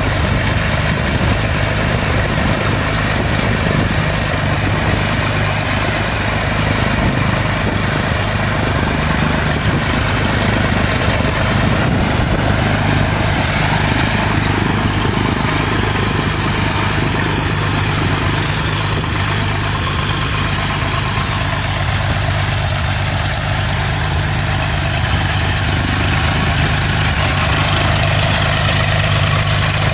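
The geared Continental GO-300 six-cylinder engine of a Cessna 175 running steadily on the ground with its cowling off and the propeller turning. This is the engine's revival after ten years out of service.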